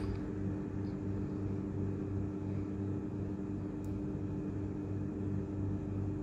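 Steady low machine hum with several held tones and a low throb pulsing about twice a second, and one faint tick about four seconds in.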